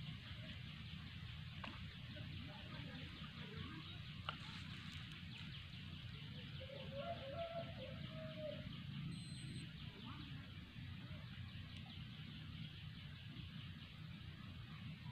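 A rooster crows once, about seven seconds in, as a single drawn-out call, over a steady fast, high chirring.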